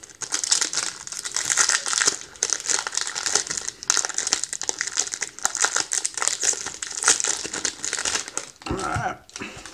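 Shiny foil wrapper of a cranberry cereal bar crinkling and crackling as it is torn and peeled open by hand, an irregular run of crackles with a few short pauses.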